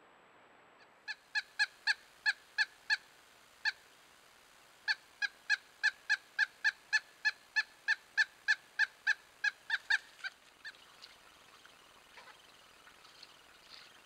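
Pileated woodpecker calling: a series of loud, evenly pitched 'wuk' notes about three a second. There is a short run of about eight notes, a brief pause, then a longer run of about eighteen that fades out near the end.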